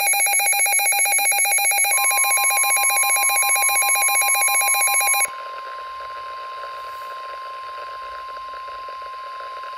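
Midland weather alert radio sounding its loud, rapidly warbling alert siren for a received flash flood warning. About two seconds in, the NOAA Weather Radio's steady 1050 Hz warning alarm tone joins it. The siren cuts off suddenly after about five seconds, leaving the steady tone.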